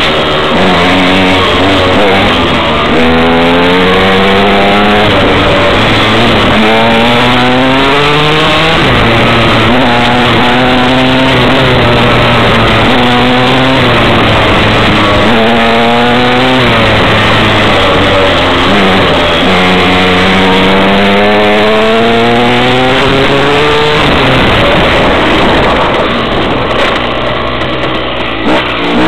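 KTM 125 EXC two-stroke single-cylinder dirt-bike engine revving hard under acceleration. Its pitch climbs, breaks off and starts lower again every few seconds as it runs up through the gears. Near the end it eases off and runs lower and a little quieter.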